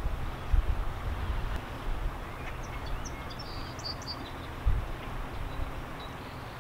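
Outdoor background: a steady hiss with an uneven low rumble, and a few faint bird chirps in the middle.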